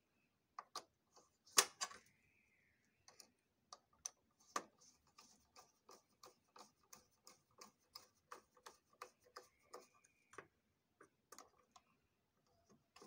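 Screwdriver turning a screw in the copier's metal frame, making a run of light ticks about four a second, with one sharper click about a second and a half in.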